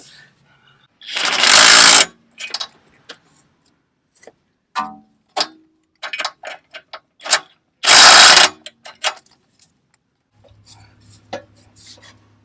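Metal sockets and hand tools clinking and clattering as they are sorted and picked out, with two loud rattles of about a second each, one about a second in and one about eight seconds in. A faint steady hum starts near the end.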